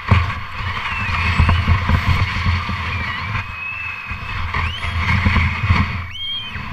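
Plastic sled sliding over snow: a rough scraping hiss with low rumbling knocks as it bumps along, and high squeaky tones gliding up and down over it, strongest near the end.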